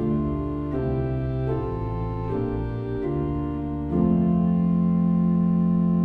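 Organ music: slow sustained chords that change about every three-quarters of a second, then a louder final chord held from about four seconds in.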